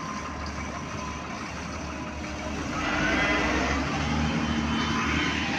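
A heavy engine or machine running steadily with a low hum. About three seconds in it grows louder and a whine rises in pitch.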